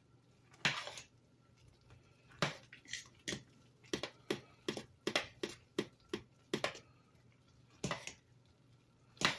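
Metal spoon clicking and knocking against the side of a stainless steel pot while stirring thick chicken and dumplings. It makes about a dozen sharp, irregular clicks that come closer together through the middle.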